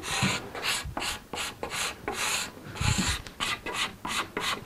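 Hand scraper drawn in quick, repeated strokes along a wooden door stile, scraping off burn marks; about three rasping strokes a second.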